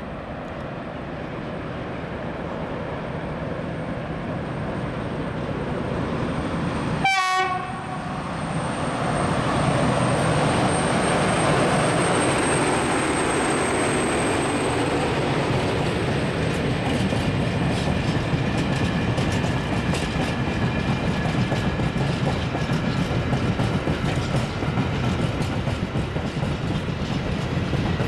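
ST48 diesel locomotive passing close by, followed by a long train of open coal wagons rolling past with a steady rumble and wheels clacking over the rail joints. A brief sharp sound about seven seconds in is the loudest moment.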